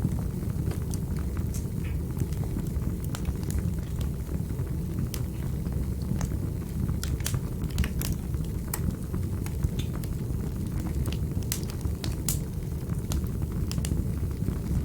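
Fireplace fire burning: a steady low rumble with sharp, irregular crackles and pops, sometimes several in quick succession.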